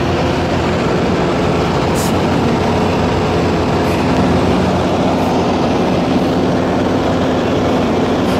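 Small high-wing plane's engine and propeller running steadily at climb power, heard loud from inside the cabin.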